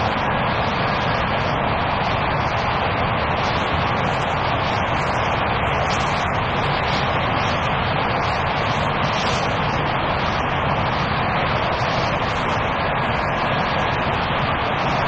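Picanol Optimax rapier loom weaving Kevlar fabric, with other looms in the weaving shed running alongside: a loud, steady mechanical noise with no breaks.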